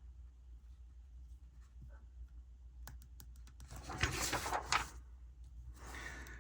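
Pen writing on paper: soft scratching strokes, the longest just after four seconds and a shorter one near the end, with a few light taps before them, over a low steady hum.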